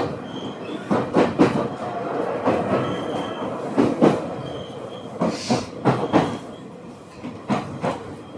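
Ueda Electric Railway train heard from on board while running: a steady rumble of wheels on rail, with paired clacks over rail joints about every second or so and a few brief faint high squeals.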